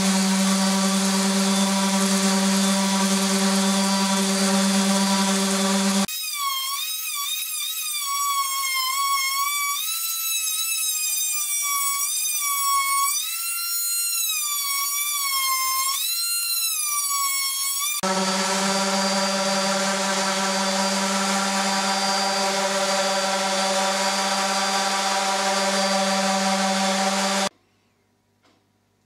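A random orbital sander running steadily on a pine board, then an oscillating multi-tool cutting into the wood, its high whine wavering up and down in pitch as it loads, then a steady power-tool hum again. The motor cuts off suddenly near the end, leaving a few faint ticks.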